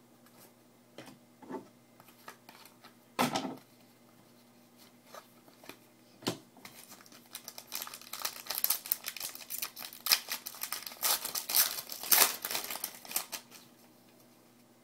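A trading-card pack being opened by hand: scattered light clicks and a short rustle about three seconds in, then several seconds of dense crinkling and tearing of the pack wrapper as it is ripped open and the cards are handled.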